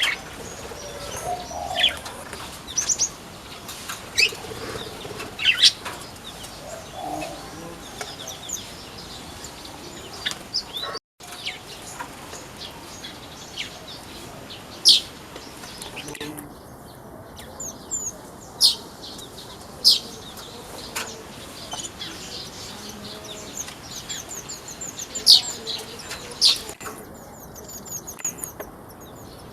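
Pleci (white-eyes) calling in an aviary: short sharp chirps scattered throughout, with several quick runs of high twittering notes, and wings fluttering. There is a brief gap about eleven seconds in.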